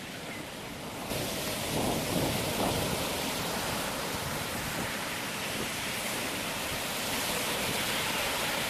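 A steady rushing noise that grows louder about a second in, then holds.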